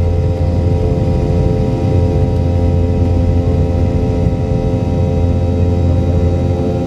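Boeing 717's rear-mounted Rolls-Royce BR715 turbofans at takeoff thrust, heard from inside the cabin as the jet lifts off. It is a steady, loud engine noise with a strong low hum and several steady tones.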